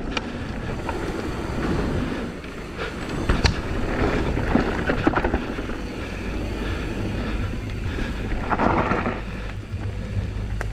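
Wind buffeting the action camera's microphone as an Intense M16 downhill mountain bike rolls fast along a dirt trail, its tyres rumbling over the ground and the bike rattling, with sharp knocks now and then and a brief louder scrape about two-thirds through.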